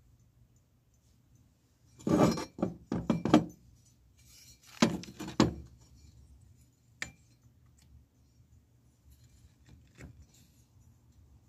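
Metal parts clinking and clattering on a workbench as a cast-metal valve housing is handled and shifted: two short bursts of clatter, then two single sharp clicks.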